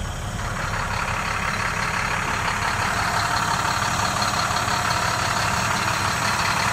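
2012 International 4300's MaxForce DT inline-six diesel idling steadily, with a higher hiss coming up about half a second in.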